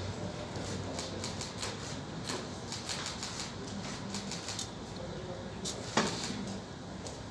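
Scattered bursts of sharp clicks, typical of camera shutters firing, over a low murmur of voices in the hall; one louder click about six seconds in.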